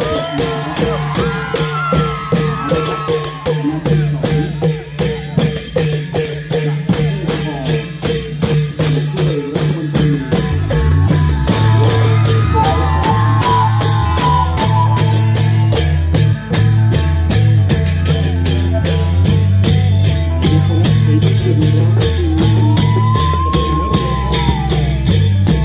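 Klong yao long-drum ensemble playing Isan festival music: long drums and hand cymbals keep a steady beat of about two strokes a second, with a melody line over them. The bass grows heavier about ten seconds in.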